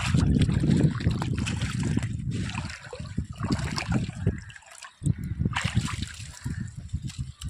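Sea water sloshing and splashing in irregular bursts as a person moves through it.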